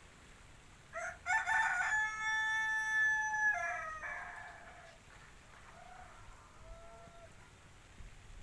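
A rooster crowing once, about a second in: a few short notes run into a long held note that drops away at the end, lasting about three seconds. Fainter short calls follow a few seconds later.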